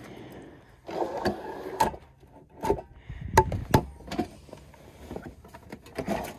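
Handling clatter as a portable butane camp stove in its hard plastic carrying case is taken from a cargo drawer, set down on the SUV's cargo floor and opened: a string of sharp plastic knocks and clicks with rustling between, the loudest two about three and a half seconds in.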